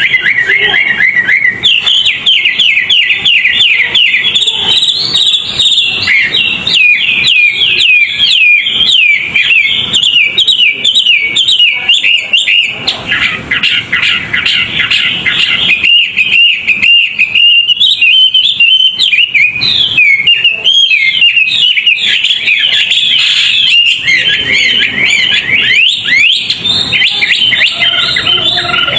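A songbird singing a fast, continuous song of rapid repeated sweeping chirps, high-pitched and unbroken.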